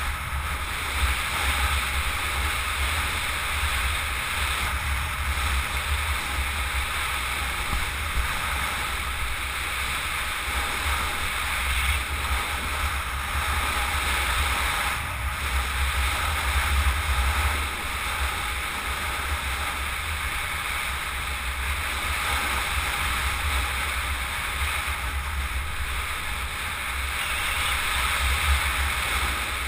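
Wind buffeting the microphone of a small racing vehicle moving fast down a paved road, a steady low rumble under a broad rushing hiss of wind and road noise.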